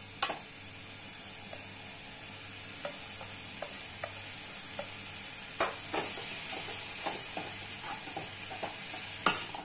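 Shredded vegetables sizzling in hot oil in a metal kadai while a perforated steel ladle stirs them, its edge scraping and clicking against the pan now and then, with a sharper knock about nine seconds in.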